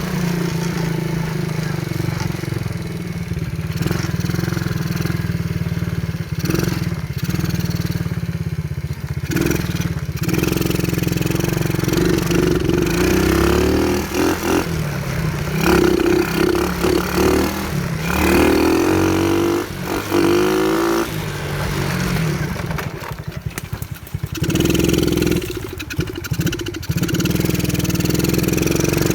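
A 125cc ATV's small single-cylinder engine runs throughout, revved up and down several times around the middle and again near the end.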